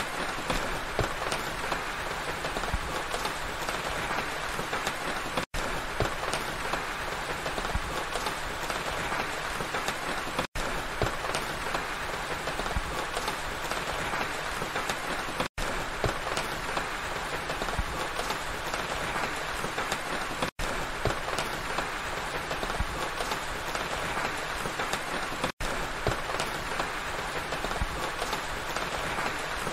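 Steady rain falling, with scattered drops ticking close by. The sound cuts out for an instant about every five seconds.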